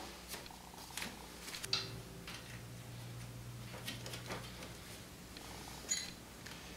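Faint, scattered metal clicks and taps as a suspension bolt and nut are handled and fitted with wrenches, with one slightly louder tap near the end.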